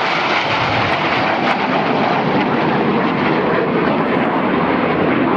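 Steady jet engine noise from BAe Hawk T.1 jet trainers flying a formation display pass, their single turbofan engines heard as an even, unbroken rush.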